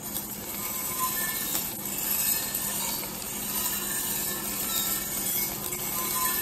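Green coffee beans tumbling and rattling in the rotating steel drum of a 3 kg Mill City coffee roaster, a steady dense rattle over the roaster's low hum.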